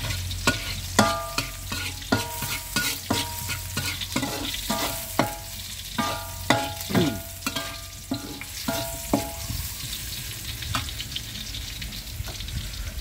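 Metal spatula striking and scraping a wok, each hit ringing briefly, as chopped garlic sizzles in hot oil. The strikes come at an uneven rate of one or two a second and stop about nine seconds in, leaving the sizzle over a steady low rumble.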